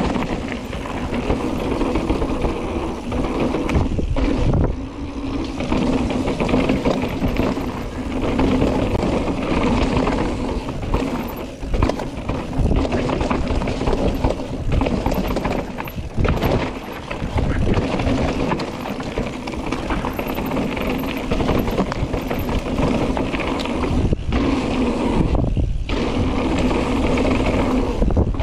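Mountain bike riding fast down a downhill trail: a steady, rough rattle of tyres and bike over the dirt and rocks, broken by a few brief dips.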